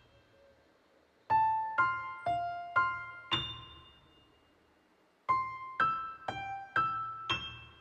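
Background music on a piano-like keyboard: two short phrases of five notes each, about half a second apart, every note ringing and fading, with a pause of about two seconds between the phrases.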